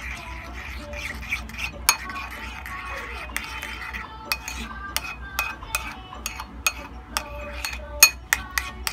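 A metal spoon stirring thick puree in a ceramic bowl. It scrapes and clinks against the bowl's sides with repeated sharp clicks, which come faster in the second half.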